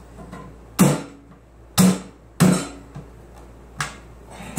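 Three sharp knocks on a sheet-metal cabinet, each with a brief low ringing, and a fainter knock near the end. This is the louvered vent being pressed and tapped into place.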